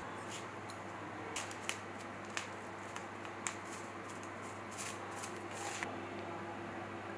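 Faint, scattered ticks and rustles as salt is tipped from a spoon and baking soda is sprinkled with the fingers into a bowl of dry flour and spices. There are about seven short ticks, spread over a few seconds.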